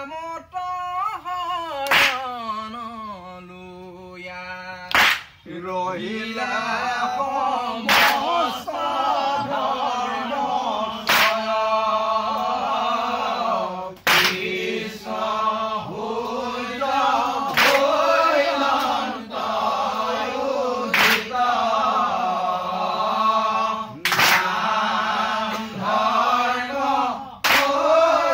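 Assamese Naam Prasang devotional chanting: a single voice sings at first, then from about six seconds in the seated group of men and women chants together in unison. Sharp hand claps struck together cut through about every three seconds, keeping the beat.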